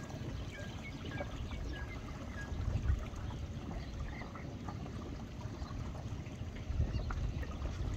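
Pond-side ambience: wind rumbling on the microphone and small waves lapping at the bank. A run of short high chirps, about two a second, sounds over the first couple of seconds.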